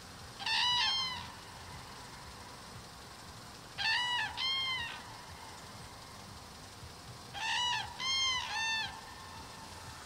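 Eurasian cranes calling: three bouts of loud trumpeting calls about three and a half seconds apart, the first two of two notes each and the last of three, each note rising and then falling slightly in pitch.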